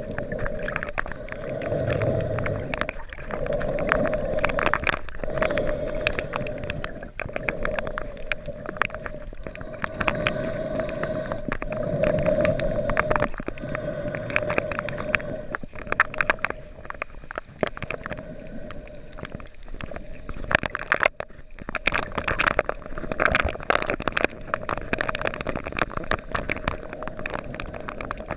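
Underwater sound of a coral reef picked up by a submerged camera: a muffled hum that swells and fades every couple of seconds under a constant crackle of fine clicks.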